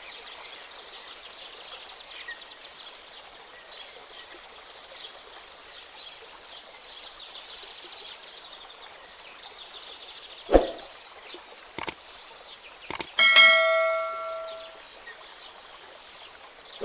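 Steady high outdoor chirring in the background, with a sharp knock, a couple of clicks, then a single bell-like ding that rings for about a second and a half near the end.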